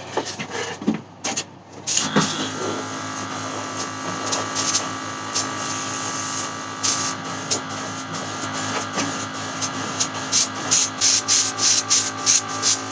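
Airbrush compressor starting about two seconds in and running with a steady hum, with short hisses of air and paint from the airbrush that come faster and more regularly near the end.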